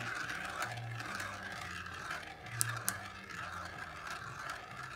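Two marbles rolling round and round a clear plastic funnel bowl of a marble run: a steady rolling whir that swells and fades in a slow rhythm, with a few faint clicks.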